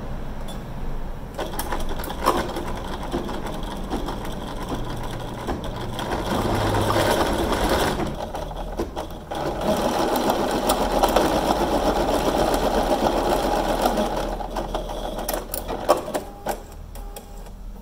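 Bernina B 770 computerized sewing machine with its embroidery module stitching a design through a coiled rope base: a fast, steady needle chatter that is louder through the middle stretch and eases off near the end, with a few sharp clicks.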